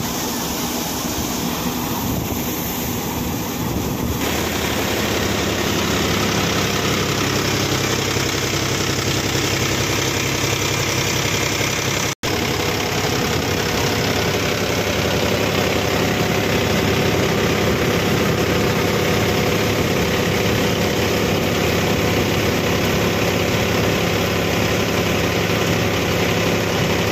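Mahindra tractor's diesel engine running steadily under load, driving a paddy thresher, together with the thresher drum's steady noise as paddy is fed through.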